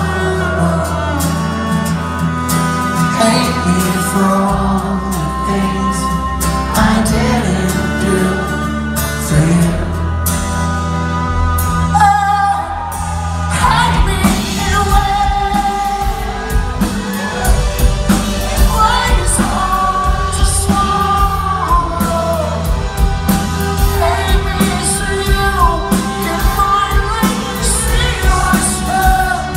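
A rock band playing live with a singer, heard from among the audience in a large theatre hall.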